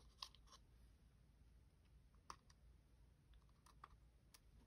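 Near silence with a few faint, scattered clicks and taps: small die-cut paper pieces being handled and pressed onto a paper snowman.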